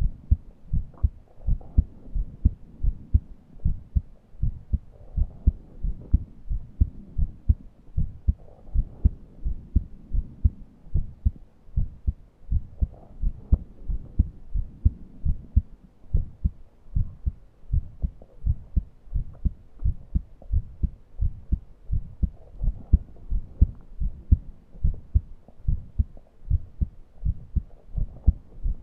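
Human heart sounds: a steady lub-dub heartbeat of evenly repeating low thumps. Faint wheezy breaths swell and fade every few seconds behind it, from a person too short of breath to breathe deeply.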